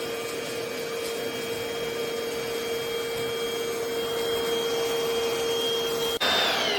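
NADALY cordless stick vacuum's motor running with a steady whine. About six seconds in there is a sudden break, and its pitch starts falling as the motor winds down.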